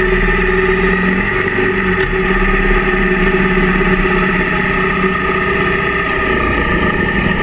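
Motorcycle engine running at a steady speed while riding, heard from a camera mounted on the bike.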